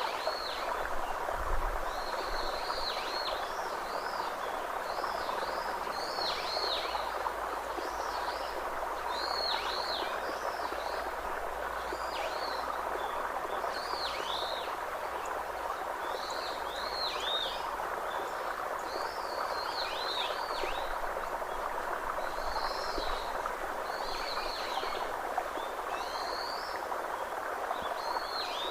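Birds calling over a steady rushing background noise: short, high, swooping chirps come in small clusters every second or two.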